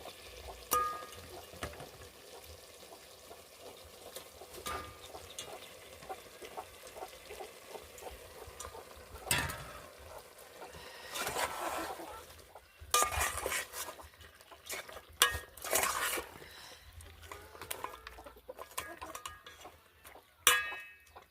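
Food being stirred in a metal cooking pot: a spoon scraping and clinking against the pot, with a few sharper knocks of utensils against cookware.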